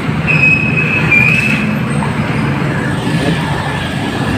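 Steady street traffic rumble with a loud high-pitched squeal lasting about a second and a half near the start, followed by a fainter steady whine.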